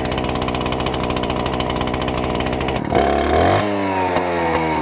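The two-stroke engine of a Makita petrol disc cutter runs steadily at a fast idle just after a cold start, with the choke flicked to its next position. About three seconds in it rises briefly, then its pitch falls steadily as it slows.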